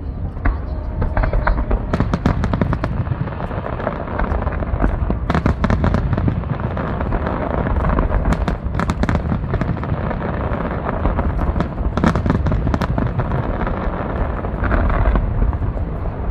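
A dense barrage of aerial firework shells bursting in quick succession, a steady run of deep booms overlaid with many sharp cracks and crackles.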